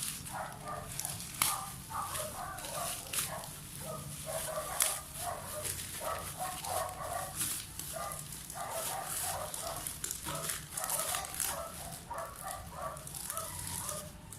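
A small dog barking and yapping over and over, several short barks a second, with a few sharp clicks between them.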